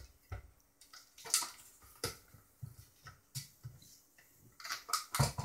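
Scattered knocks and clatter of a Yamaha LS9-16 digital mixing console being handled and flipped over, with a quick run of sharper clicks near the end.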